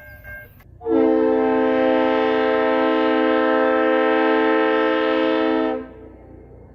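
Nathan K5HL five-chime air horn on a CN ES44AC diesel locomotive, sounding one long, steady blast of about five seconds that starts about a second in and cuts off cleanly. A low rumble runs under it and goes on after it.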